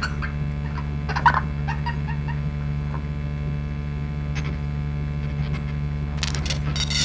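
Steady low electronic hum of layered drone tones, with scattered small clicks and scratchy crackles over it from a live electronic improvisation, briefly louder about a second in and again near the end.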